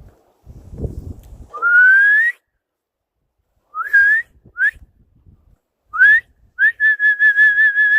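A person whistling: a long rising whistle, several short upswept whistles, then a held whistle that warbles quickly. Low rumbling noise is heard at the start.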